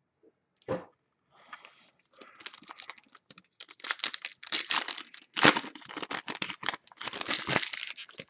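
Foil trading-card packs (Donruss Optic football) being handled and crinkled: one knock about a second in, then a dense run of crackling foil wrappers.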